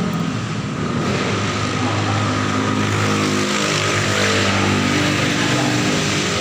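Printing machine running: a steady mechanical whir with several motor tones whose pitch dips and comes back up about halfway through.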